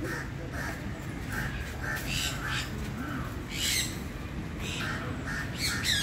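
Eclectus parrots squawking: a string of short, harsh repeated calls, broken by about four louder screeches.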